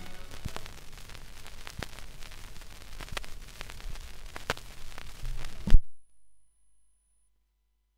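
Vinyl record surface noise after the song ends on a 45 rpm single: soft crackle and hiss under the stylus, with a pop about every 1.3 seconds, once per turn of the record in the run-out groove. A single loud thump a little before six seconds in, then the sound cuts off.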